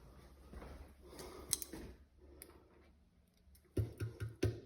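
Scattered light clicks and knocks of an electric kettle being handled and switched on, with a few short, louder low sounds near the end.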